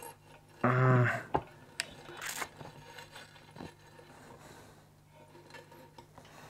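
A short hummed vocal sound about a second in, then a few soft clicks and scrapes as a xaxim tree-fern fibre panel is pushed and shifted inside a small glass tank.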